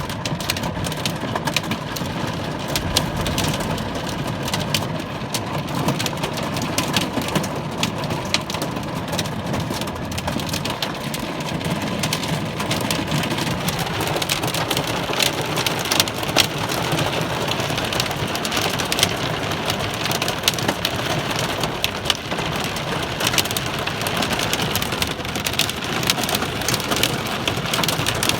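Heavy rain and hail pelting down: a dense, steady hiss of rain with many sharp ticks of hailstones striking hard surfaces.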